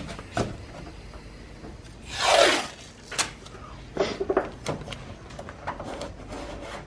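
Masking tape being pulled off and pressed onto a car's fender panel: one longer ripping rush about two seconds in, then short crackles and taps as the tape is handled and smoothed down.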